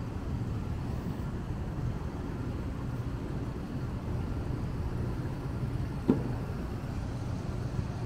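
Steady low engine rumble with a faint hum, heard in the open air, and one short sharp knock about six seconds in.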